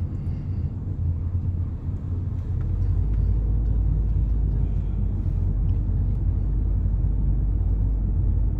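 Steady low rumble of a moving car heard from inside the cabin: engine and tyre road noise, growing slightly louder about two and a half seconds in.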